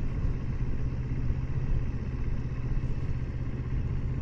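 2020 Kawasaki Versys 650's parallel-twin engine running steadily as the bike rides along at an even pace.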